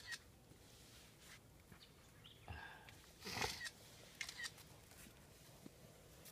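Quiet outdoor background with a few short rustles and scuffs from German Shepherd puppies moving about. The loudest comes about three and a half seconds in.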